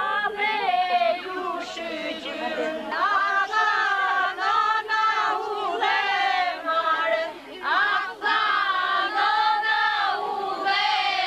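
A group of voices, women's among them, singing a traditional Albanian wedding song together without instruments, in drawn-out phrases of a second or two with short breaks between them.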